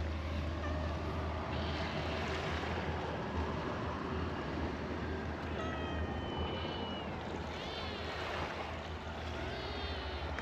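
A cat meowing a few times with high, arching calls in the second half, over a steady low rumble.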